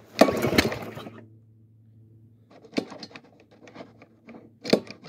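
Walk-behind lawn mower's small engine pull-started, firing briefly for under a second on gas dribbled into the carburetor, a sign that it has spark. Scattered clicks and rattles follow.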